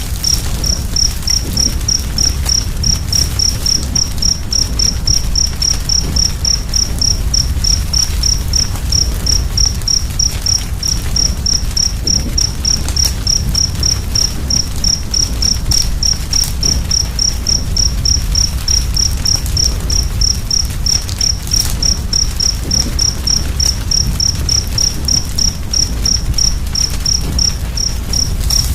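A wood fire burning with a steady low rumble and a few scattered crackling pops, while a cricket chirps steadily, a short high chirp about three times a second.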